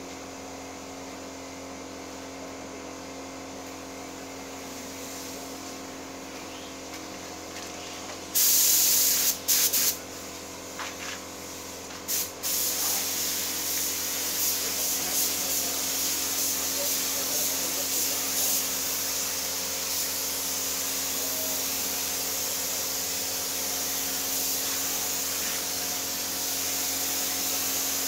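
Gravity-feed air spray gun hissing as paint is sprayed onto a car body: a few short blasts about eight to twelve seconds in, then steady spraying with the trigger held. A steady machine hum runs underneath.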